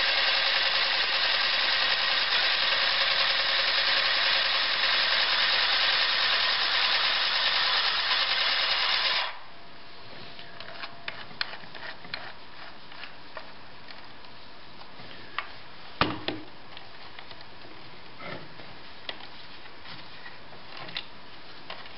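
Battery-powered 1973 Southbury handheld chain-stitch sewing machine running and stitching through fabric: a steady motor whir that stops abruptly about nine seconds in. After it, scattered light clicks and one sharper knock as the machine and fabric are handled.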